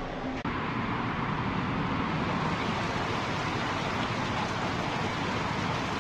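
Steady rushing street noise of road traffic.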